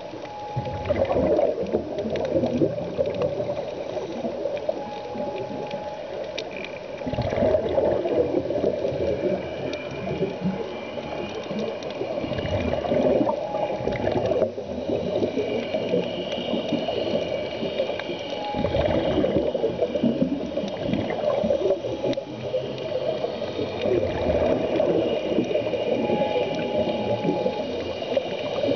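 Scuba diver breathing through a regulator underwater: the exhaled bubbles gurgle in bursts about every six seconds, with short steady tones heard between breaths.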